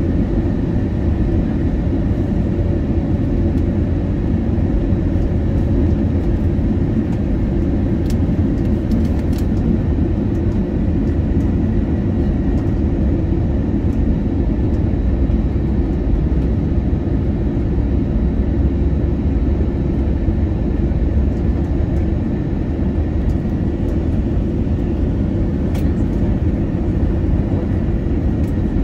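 Steady cabin noise of an Airbus A320neo on final approach, heard from inside the cabin. A low rumble of airflow and its Pratt & Whitney PW1100G geared turbofan engines runs throughout, with a faint steady whine above it.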